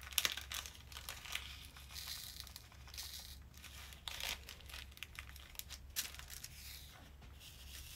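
Small plastic zip bag of round resin diamond-painting drills crinkling as it is handled, with many small clicks and rattles of drills against a plastic drill tray.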